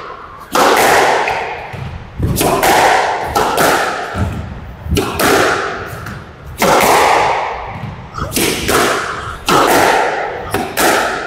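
Squash rally: the ball cracking off rackets and court walls in a quick run of sharp hits, each echoing in the enclosed court.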